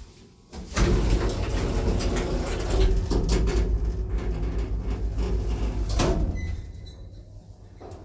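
1980s Končar traction lift: the power-operated sliding car doors shut with a loud rattling slam, then the car sets off, settling into a quieter steady hum near the end.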